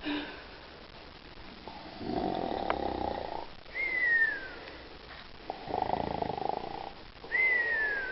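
Snoring, twice: each time a rasping snore on the in-breath, then a high whistle falling in pitch on the out-breath.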